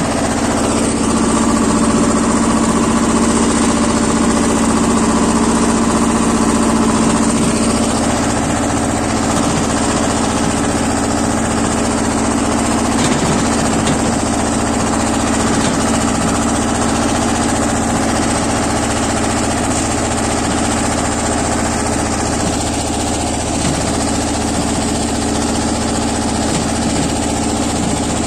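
The BJR F 3800 tractor's Lombardini 5LD 825-2 five-cylinder diesel engine running steadily at working speed, close up, while the tractor drags a box blade through loose soil.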